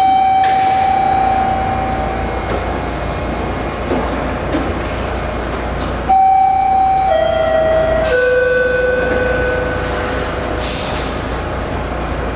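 Toronto subway train standing at the platform with a steady low hum. A single held tone sounds at the start. About six seconds in comes a three-note chime stepping down in pitch, the TTC signal that the doors are about to close, followed by a short hiss.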